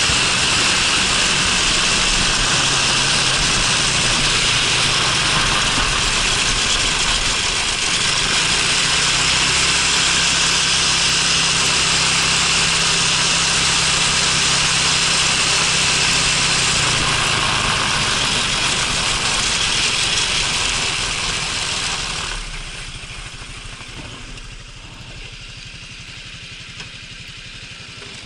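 Honda Freeway 250 scooter's single-cylinder engine running under way, with loud wind and road noise on the bike-mounted microphone and the engine note shifting as the speed changes. A little past twenty seconds the noise falls away as the scooter slows, leaving the engine idling at a stop.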